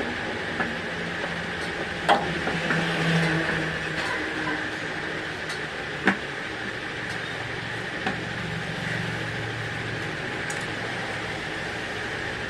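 Steady mechanical background hum with a few sharp clicks and taps, the loudest about two seconds in and again about six seconds in.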